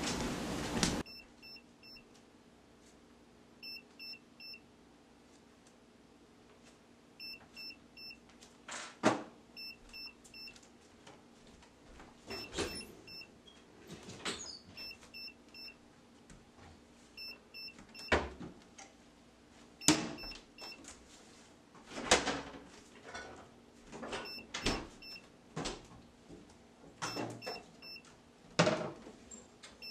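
Wooden kitchen cabinet doors knocking and clunking as they are opened and shut, one or two knocks every second or two. Faint short electronic beeps in twos and threes come back every couple of seconds.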